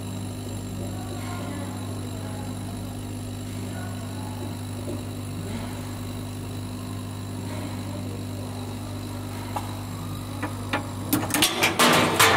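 Steady low hum of a CO2 laser cutting machine's running equipment. About ten seconds in, a quick run of sharp clicks and knocks breaks in and grows louder toward the end.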